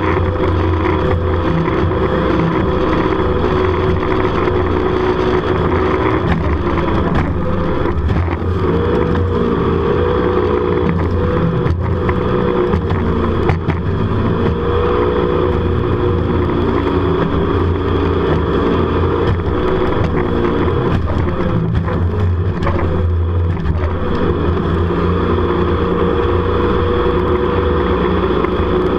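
Jet boat engine running hard at speed. Its pitch wavers up and down through the middle as the boat swings through turns, then settles steady again.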